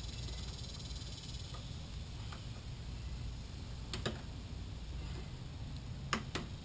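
A few sharp clicks and taps of hand tools on the mower's wheel assembly, one about four seconds in and two close together near the end, over a steady low rumble.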